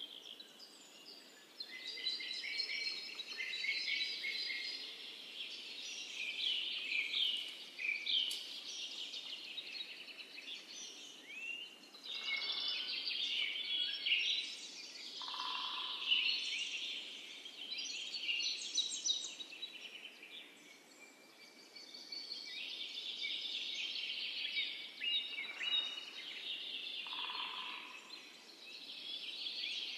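A chorus of birds chirping and singing at once over a faint steady hiss. It thins out briefly twice, and a couple of short, lower calls stand out.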